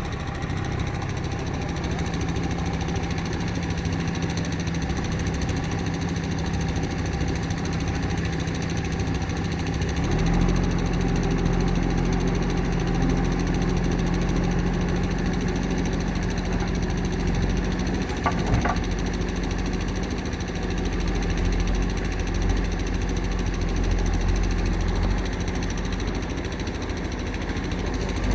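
JCB backhoe loader's diesel engine running steadily, its low note growing stronger about ten seconds in.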